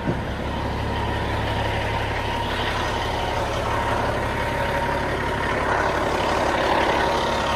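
Peterbilt 379 semi truck's diesel engine idling with a steady low hum.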